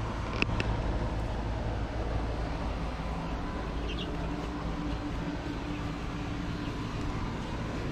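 Steady outdoor background rumble with a faint hum, a couple of light clicks about half a second in and a short high chirp about four seconds in.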